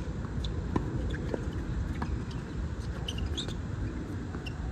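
Tennis rally on a hard court: sharp pops of racket strikes and ball bounces about every half second to second, with several short high squeaks, over a steady low background rumble.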